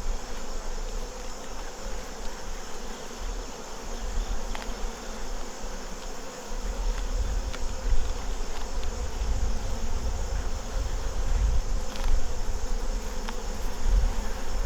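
Honey bees buzzing steadily around an open hive, with a low rumble underneath.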